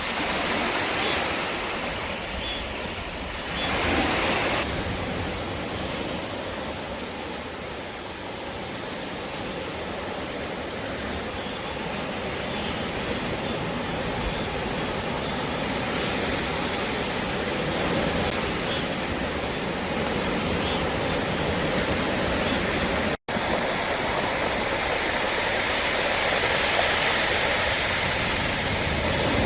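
Sea waves breaking and washing along the shore: a continuous rushing surf that swells now and then, most strongly about four seconds in, with a split-second gap in the sound about two-thirds of the way through.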